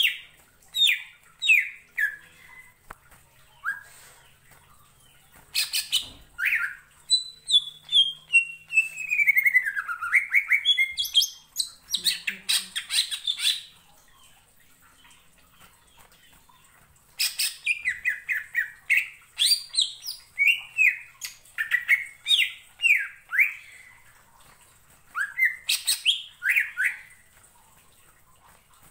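Green leafbird (cucak ijo) singing in bursts of quick, downward-slurred whistled notes, with a long whistle falling then rising about ten seconds in and harsher squawky notes mixed in; the song breaks off for a few seconds past the middle and again near the end. This is the loud, busy 'gacor' song used to stir other birds into singing.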